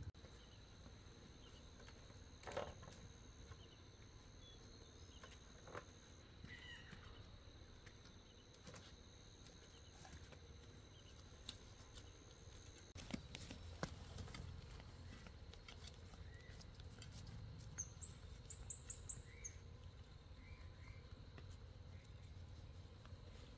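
Quiet forest ambience with a few faint knocks and scattered bird chirps, and a quick run of high chirps about eighteen seconds in.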